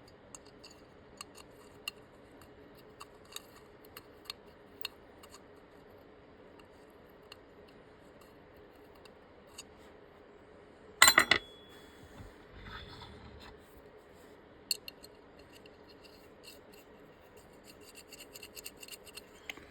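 Small metal clicks and light scraping from a nut and threaded parts being handled and turned by hand, with one louder knock about eleven seconds in.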